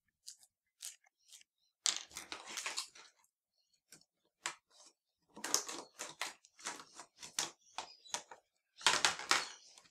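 Scissors snipping through a clear plastic toy package, with the plastic crackling: a burst of crackles, then a quick run of snips about four a second, then a louder crackle near the end.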